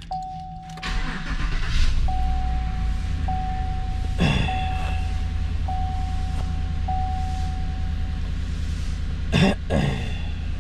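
2017 Chevy Suburban's 5.3-litre V8 starting about a second in on fresh oil and settling into a steady idle. A chime tone repeats about every second for the first eight seconds. Two brief loud sounds cut across it, about four and nine seconds in.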